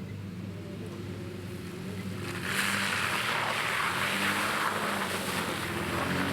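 A Nissan 4x4's engine running steadily off-road. About two and a half seconds in, a loud rushing splash of water and mud is added for several seconds as the truck drives through a mud puddle.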